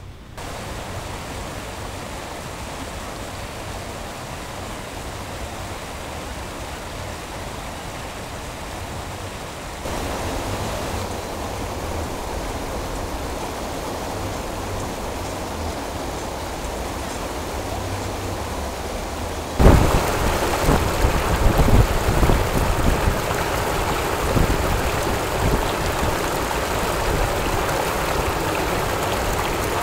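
Water pouring over a low river weir into white water, a steady rushing noise. It gets louder in two steps, about ten seconds in and again near twenty seconds in, after which uneven low bumps run under the rush.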